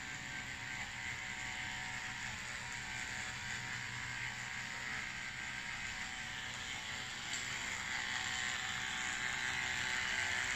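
Portable camping water heater rig running: a steady hum with a hiss over it, growing slightly louder near the end.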